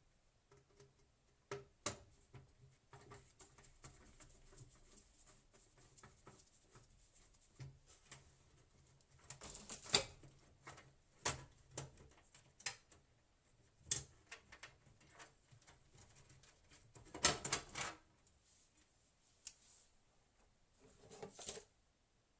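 Scattered small clicks, taps and rustles of computer hardware being handled, with short louder scraping bursts about ten seconds in, again about seventeen seconds in, and near the end.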